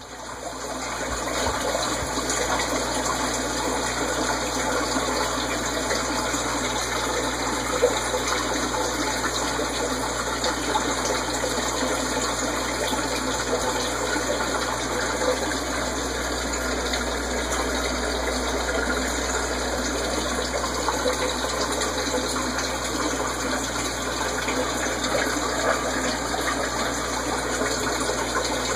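Aquarium water circulation running: a steady rush of moving water that holds even throughout.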